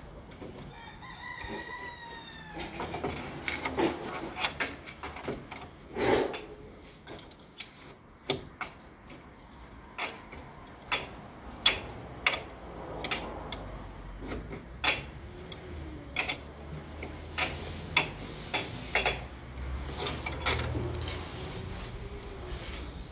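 A rooster crows once, starting about half a second in and lasting about two seconds. Scattered sharp metallic clinks and knocks run throughout from hand work on a car's rear body, where it is chained to a chain puller.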